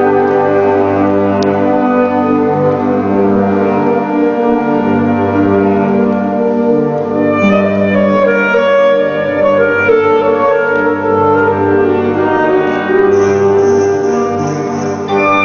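Alto and soprano saxophone soloists playing with a military wind band accompanying on sustained brass and woodwind chords.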